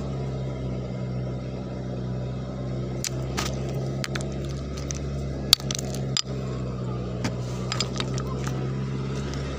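Steady low hum of the engine of a dompeng gold-mining suction machine running nearby. Over it come several sharp clicks of river stones knocking together as they are picked up and handled, the loudest about five and a half seconds in.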